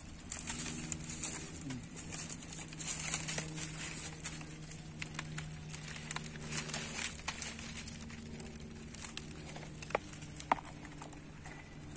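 Dry palm fronds crackling and rustling as a man handles freshly caught tilapia on them, with many small sharp clicks and a couple of louder snaps near the end. A steady low hum runs underneath.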